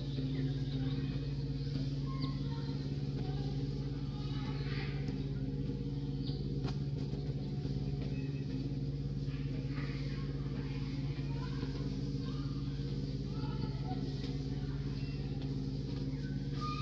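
A steady low motor hum, with faint short chirps and squeaks scattered above it.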